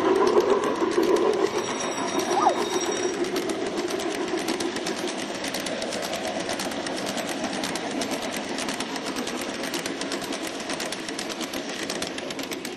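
A long train of LGB garden-scale model coaches running close past, its wheels making a fast, even clicking rattle on the track that slowly gets quieter as the train moves away. A short rising whistle sounds once, about two seconds in.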